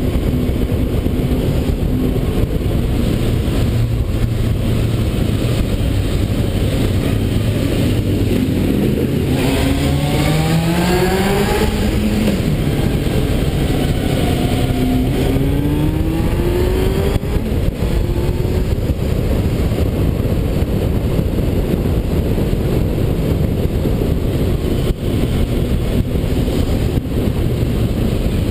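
Motorcycle engine under way over heavy, steady wind and road noise. About ten seconds in, the engine climbs in pitch as it accelerates, drops sharply at a gear change, and climbs again.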